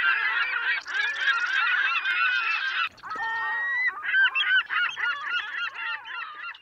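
A flock of birds calling, many short overlapping calls at once, with a brief break about three seconds in before the calls resume.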